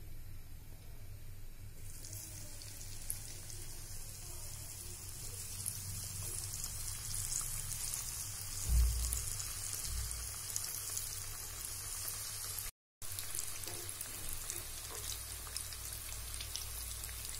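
Oat-coated banana balls deep-frying in hot oil in a pan: a steady crackling sizzle that starts about two seconds in as they go into the oil. A single low thump comes about halfway through.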